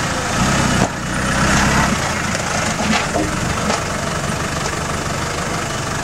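Land Rover Discovery engine pulling at low speed as the 4x4 crawls over rocky slate ledges and through mud, a little louder between about half a second and two seconds in. There is a sharp clunk just under a second in.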